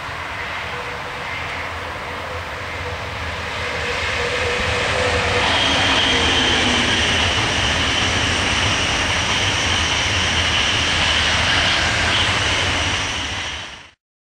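An SBB Re 460 electric locomotive hauling passenger coaches passes at speed: the rumble and rail noise build for about five seconds, then stay loud with a high steady whine over the clatter. A lower tone drops in pitch as the locomotive goes by, and the sound cuts off abruptly near the end.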